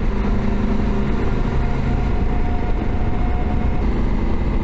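Honda CRF1100L Africa Twin motorcycle's parallel-twin engine running at a steady cruise while riding, its note held level over a constant rush of noise.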